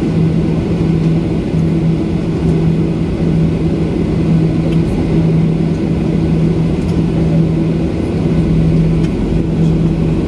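Jet airliner's engines running at taxi power, heard from inside the passenger cabin: a steady rumbling hum with a low droning tone that wavers on and off.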